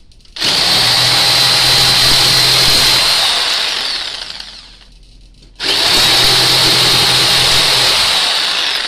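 Corded electric jigsaw running with a T-shank blade clamped in its U-shank holder. It starts about half a second in, runs steadily for about three seconds and winds down. After a short pause it starts again and runs until near the end. The blade stays put and the saw works normally.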